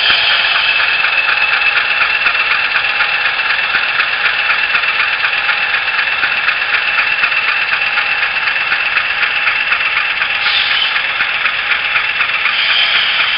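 Sound-decoder recording of a GE U28C diesel's V16 prime mover running steadily, played through the small speaker of an HO scale model, thin and lacking bass. A brief higher sound comes about ten seconds in.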